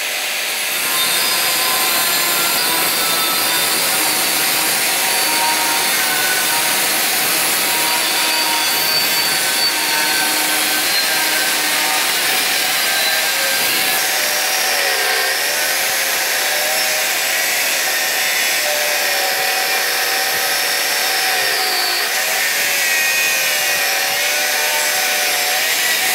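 Angle grinder with an extra-thin cut-off disc cutting through a thick steel bar: a continuous loud, high whine over a hissing grind. The whine's pitch sags and recovers a couple of times in the second half.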